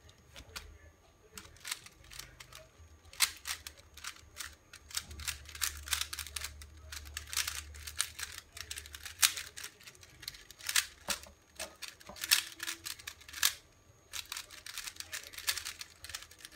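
Rubik's Cube being turned quickly by hand, its plastic layers clicking in rapid irregular runs, with short pauses between runs.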